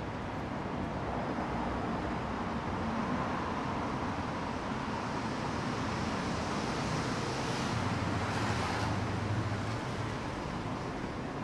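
City street traffic noise: a steady wash of road noise, swelling as a vehicle passes about two-thirds of the way through.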